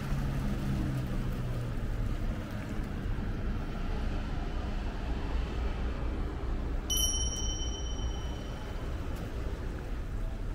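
Steady low rumble of a moving vehicle, with one bright ding about seven seconds in that rings on for about two seconds.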